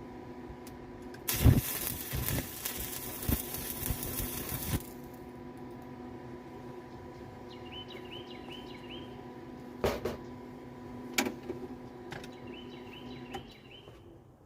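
Stick-welding arc crackling for about three and a half seconds as a small tack weld is laid with a 3/32 7018 rod at 88 amps, followed later by a few sharp metal knocks. A steady hum runs underneath and stops near the end, with faint bird chirps.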